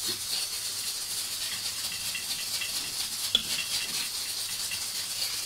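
Wooden rolling pin rolling chapati dough back and forth on a floured stone counter: a soft rhythmic rolling rustle over a steady hiss and low hum, with a single click about three seconds in.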